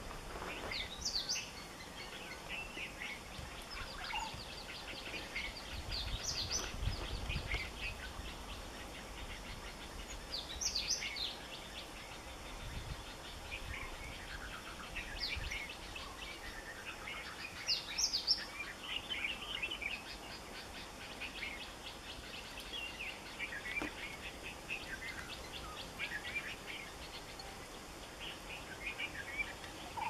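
Wild birds chirping and calling, many short high notes overlapping, over a faint steady hiss, with a low rumble for a couple of seconds around seven seconds in.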